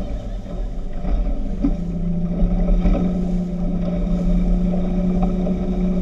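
Speedboat engine running at a steady pitch over a heavy low rumble, settling to a lower, even note about a second and a half in.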